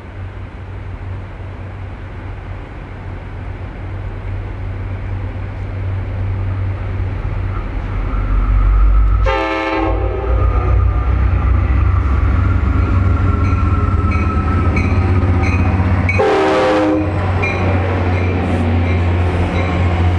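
NJ Transit commuter train approaching and running into the station, its rumble growing steadily louder, with two short horn blasts about nine and sixteen seconds in. Regular clicking from the wheels over the rails as the coaches pass near the end.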